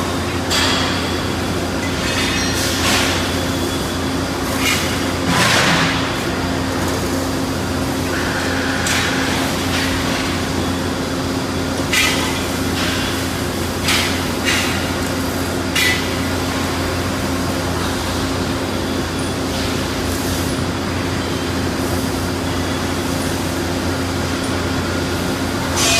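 Steady machine hum from a running industrial machine, with short metallic clinks and knocks every few seconds.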